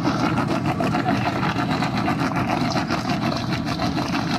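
A 4x4 vehicle's engine running steadily at a constant speed.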